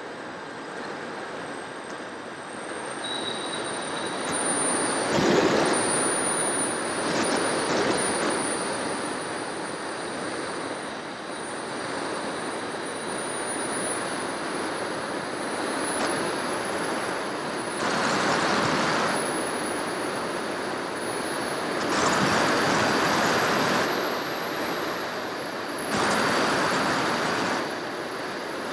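Wind rushing past an FPV model aircraft's onboard camera in flight, with a thin, steady, high whine from its electric motor running underneath. The rush swells into louder stretches several times, about five seconds in and again near the middle and towards the end.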